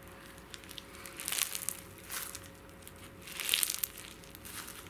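Clear fishbowl slime full of small plastic beads squeezed and kneaded by hand, the beads crunching and crackling in a few irregular bursts, loudest about three and a half seconds in.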